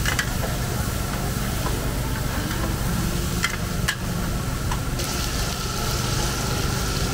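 Busy night-market stall background: a steady low engine-like hum with food sizzling on a hot pan, two sharp clicks about three and a half and four seconds in, and a brighter hiss from about five seconds in.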